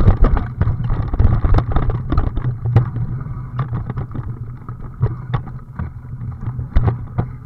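Steady rumble and dense clatter of a vehicle jolting over a rough dirt forest trail, with many short knocks and rattles, and wind buffeting the mounted camera's microphone.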